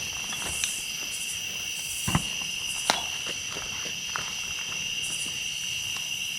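Steady high-pitched drone of insects calling, with scattered small knocks and rustles of someone moving; two sharper knocks come about two and three seconds in.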